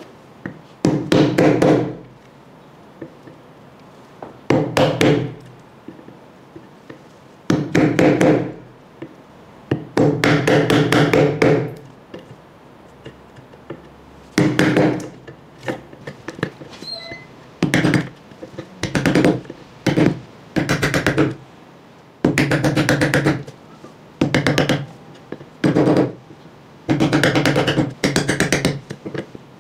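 A woodworking power tool buzzing into wood in repeated short bursts of about one to two seconds, with brief pauses between cuts.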